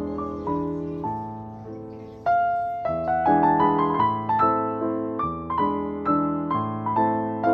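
Background piano music: notes and chords with a clear attack and fading ring, getting louder a little over two seconds in, then moving at about two notes a second.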